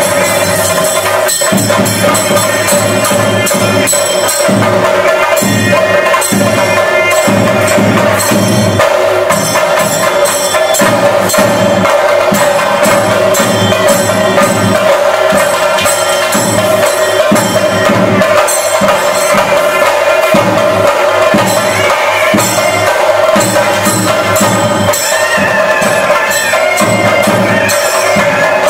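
Chenda drums played in a continuous, rhythmic beat with metallic cymbal-like shimmer over a steady held tone: the percussion ensemble accompanying a Muthappan theyyam.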